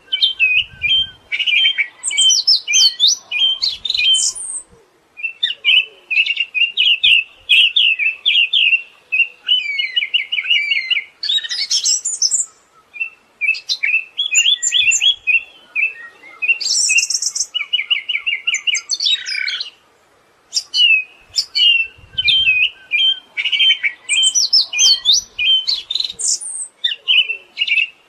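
Siberian thrush singing a fast, varied, high-pitched song of quick chirps and whistles, broken by a few buzzy rattling trills and short pauses.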